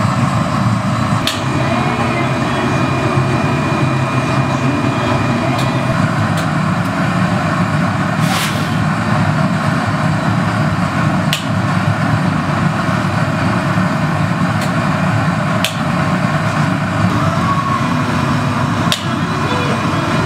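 Steady rushing noise of a glassblowing studio's gas-fired furnace and glory hole burners, with about eight sharp metal clinks from the steel blowpipe against the marver, bench and tools.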